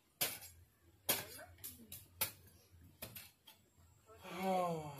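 Short sharp knocks at irregular spacing, about eight of them, from a fawda (digging hoe) chopping into field soil, then a person's voice briefly near the end.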